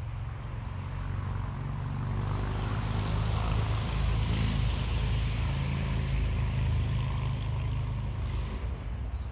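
A motor vehicle passing: a low engine rumble and a rushing noise swell through the middle and fade near the end.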